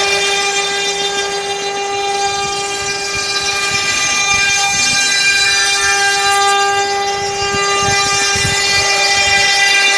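CNC router spindle running at a steady high-pitched whine while its cutter skims the surface of the spoilboard, with a faint low rumble from the cut.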